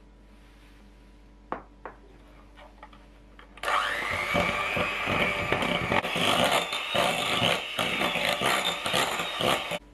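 A couple of light clinks of a small glass cup against a glass bowl, then an electric hand mixer switches on about a third of the way in. It runs steadily, beating cream cheese and powdered sugar with the beaters knocking in the glass bowl, and cuts off suddenly just before the end.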